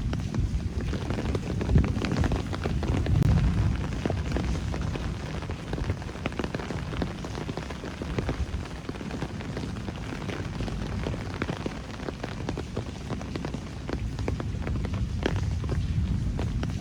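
Rain falling steadily, with many close drops ticking sharply on hard surfaces, over a low rumble that swells around two to four seconds in.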